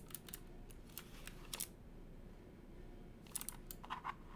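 Scattered clicks from a Keywalker68 mechanical keyboard with clicky switches being handled: a few isolated clicks in the first two seconds, then a quick cluster of clicks near the end.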